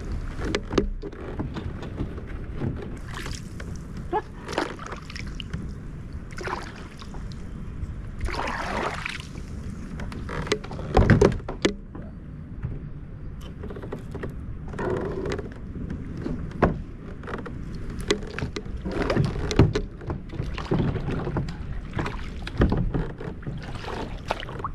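A kayak moving on the water: splashing and water sloshing, with scattered knocks and thumps against the hull; the heaviest thumps come about eleven seconds in.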